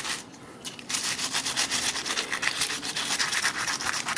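A brush scrubbing the soapy plastic blades of a PC power-supply fan in rapid back-and-forth strokes, with a brief pause just after the start.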